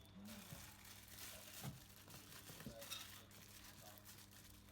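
Faint crinkling and tearing of insulating tape being pulled and wrapped around the timer's wire joints, over a steady low hum.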